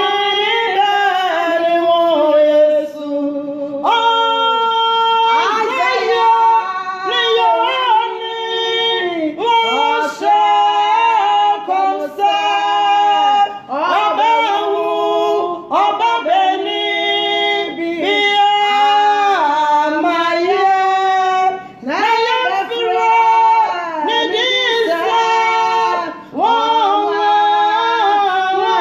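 Two women singing a worship song together, their voices holding and sliding between sustained notes.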